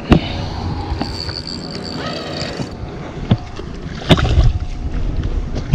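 Water and wind around a small fishing boat while a hooked fish is reeled to the side, with a few sharp knocks and clicks from handling the rod, reel and boat, and a thin high whine for about a second and a half early in the reeling.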